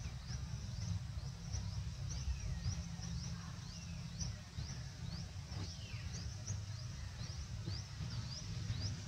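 Outdoor ambience: a steady low rumble with small birds chirping high, short notes over and over, about two or three a second. A few falling whistled calls come in now and then.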